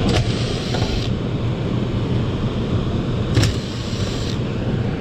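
HVAC equipment running steadily with a low rumble, with one brief tick about three and a half seconds in.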